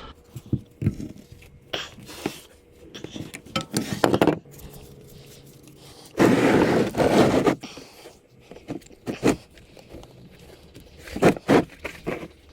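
Oil filter wrench clicking and scraping against the motorcycle's spin-on oil filter as it is worked loose, in scattered knocks. About six seconds in there is a louder rush of scraping noise lasting over a second.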